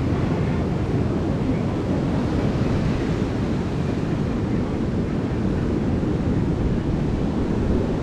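Steady wind buffeting the microphone over the continuous rush of ocean surf.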